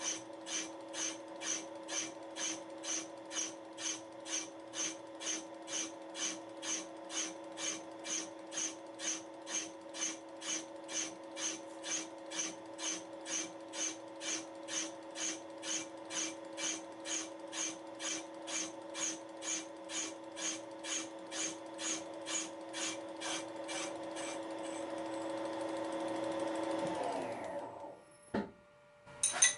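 Wohlhaupter UPA 5 boring and facing head turning in a milling machine spindle during a light facing cut with a high-speed steel tool: a sharp high tick about twice a second, once per turn of the head, over the steady hum of the machine's drive. About 24 seconds in the ticks fade, then the drive winds down and stops, and a few clicks follow.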